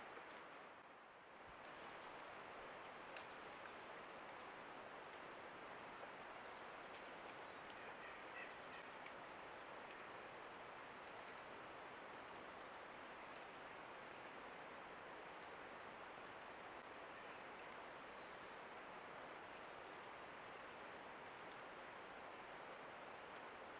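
Steady, faint rush of flowing creek water, with a few faint high bird chirps about eight seconds in and scattered tiny ticks.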